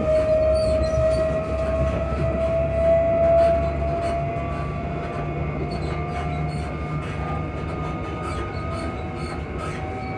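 Traction motor whine of a Class 334 electric multiple unit under way, heard from inside the carriage. It is a steady hum that rises slowly in pitch over a low running rumble.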